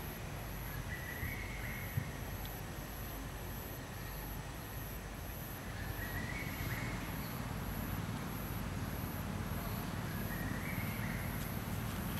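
Outdoor ambience: a steady low rumble with a high insect trill pulsing a little over once a second, and three short rising calls about four seconds apart.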